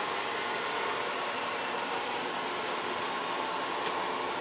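A steady, even rushing hiss that holds the same level throughout.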